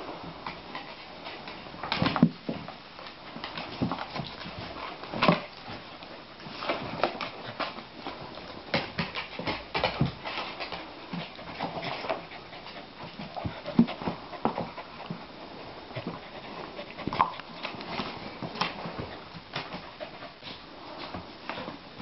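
Two dogs play-fighting on wooden floorboards: irregular scuffling and knocks of paws and bodies on the boards, with the odd short whine.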